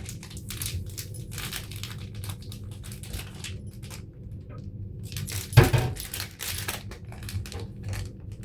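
Plastic packaging of a pack of disposable gloves crinkling and rustling in short bursts as it is handled and tugged at, sealed tight and hard to open, loudest about halfway through. A steady low hum runs underneath.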